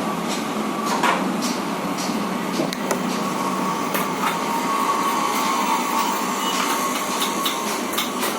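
Scattered clicks and light knocks of plastic printer cover parts being handled and fitted, over a steady background hum.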